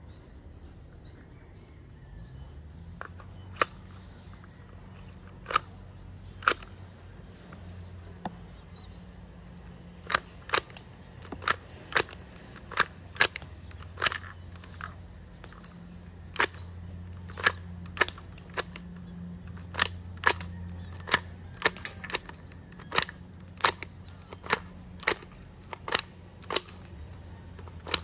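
Sharp clicks from the mechanism of a handmade paper rifle as it is worked again and again, about two dozen in all: a few spaced out at first, then about one every half second to a second from about ten seconds in. A faint low steady hum runs underneath.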